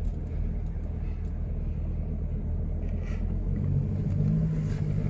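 Inside the cabin of a 2000 Toyota Camry, its inline-four engine running at low revs as the car rolls slowly along: a steady low rumble, with a faint hum joining in over the last second or so.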